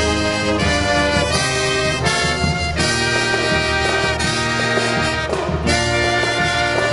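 Live brass marching band playing a tune, with trumpets and trombones carrying it in held, changing chords.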